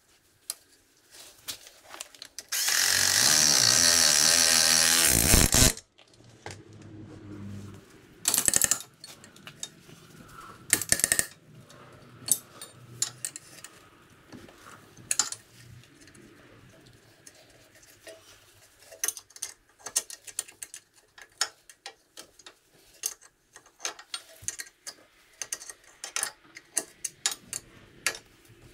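A power tool running in one loud burst of about three seconds near the start and two short bursts a little later, then many scattered clicks and taps of hand tools on metal, as bolts are worked at a rear axle hub.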